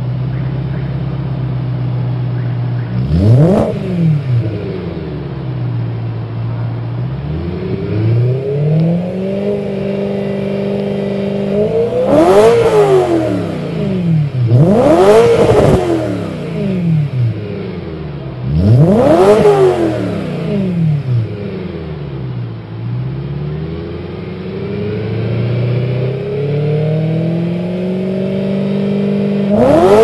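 2009 BMW E92 M3's 4.0-litre V8 through a Challenge stainless steel rear section exhaust. It idles steadily, then is revved repeatedly while standing still: several quick blips that rise and drop straight back, and a couple of slower climbs held briefly at higher revs.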